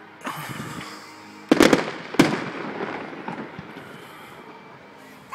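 Fireworks going off: a quick cluster of sharp bangs about a second and a half in, then a single loud bang half a second later, each trailing off in a fading rumble. Another burst begins right at the end.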